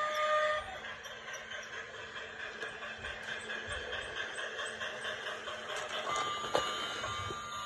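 Battery-powered toy steam locomotive running steadily along plastic track, its small motor and wheels making a continuous rattling hum. A single sharp click near the end as the track switch lever is flipped.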